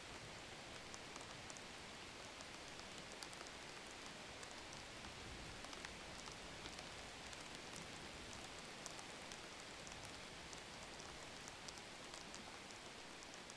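Faint steady hiss-like noise with scattered light ticks.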